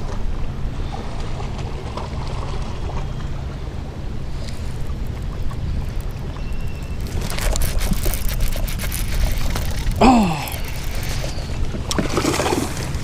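Water splashing at the side of a kayak, from about seven seconds in and again near the end, likely a bass being fought and landed, over a steady low rumble of wind on the microphone. A short falling vocal sound comes about ten seconds in.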